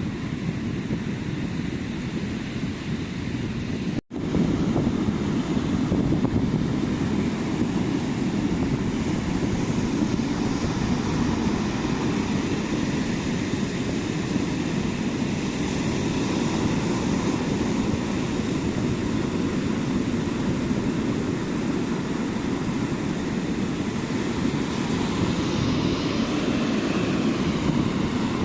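Steady wash of ocean surf breaking on a beach. The sound cuts out for an instant about four seconds in, then comes back slightly louder.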